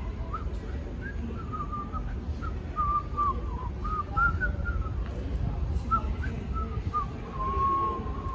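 A person whistling a short, wavering tune of quick notes, ending on a longer held note, over a steady low rumble.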